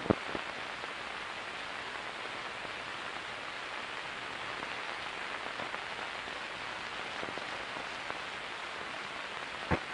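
Steady hiss and crackle of an old film soundtrack, with a few faint clicks at the start and a sharper click near the end.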